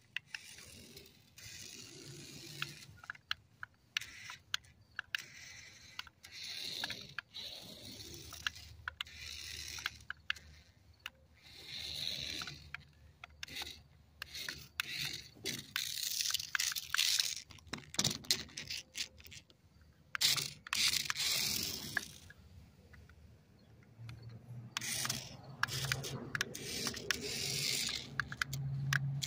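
Adventure Force RC stunt car driving on a trampoline mat: its electric motors whir in bursts, and its rubber tyres scrape and click against the mat. The whir grows louder and steadier near the end as the car comes up close.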